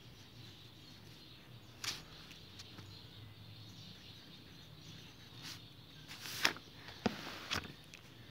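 Pencil and paper handling: a few scattered taps and rustles against notebook pages, loudest in a short cluster in the second half, over a low steady hum.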